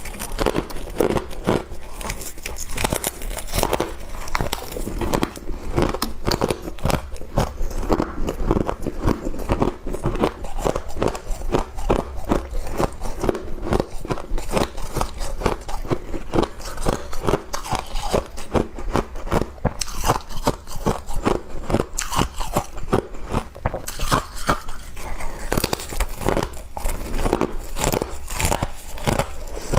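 Close-up crunching of frost being bitten and chewed: dense, rapid crunches with no pause.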